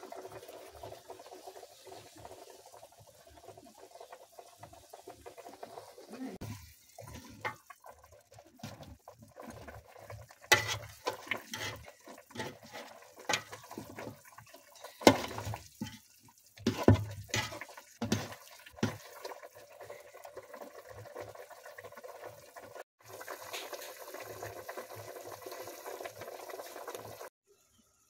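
Chicken stew bubbling in a metal pot, with a metal spoon stirring it and clinking sharply against the pot several times in the middle. Near the end the sound changes to a steadier hiss of a pot of water heating.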